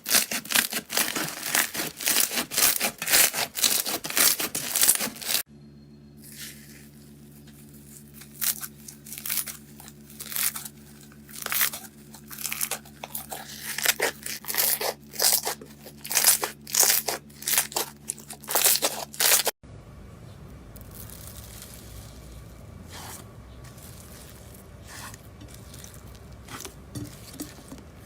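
Slime being pressed and stretched by hand, crackling and popping in dense runs of clicks at first, then in separate squelchy bursts, then more softly; a steady low electrical hum runs under the middle part.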